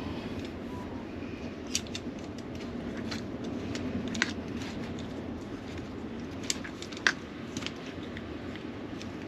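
Metal kitchen tongs clicking and tapping against a plastic tub while chicken drumsticks are turned in flour. The clicks come a dozen or so times at irregular spacing over a steady low hum.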